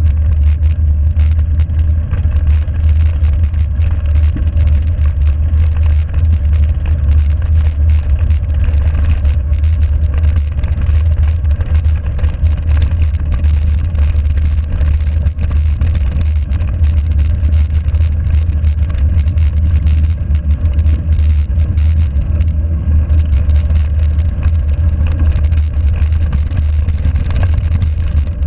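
Mountain-bike tyres rolling steadily over a gravel forest road, with a constant low wind rumble on an action camera's microphone and small rattles and clicks throughout.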